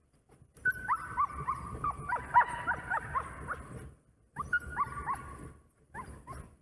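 Sled dogs whining and yipping, several high yelps falling in pitch over a held whine, in two bursts with a short break about four seconds in, then a few short cries near the end.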